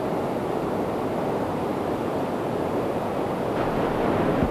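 Fast-flowing mountain stream rushing over rocks: a steady hiss of white water, a little louder near the end.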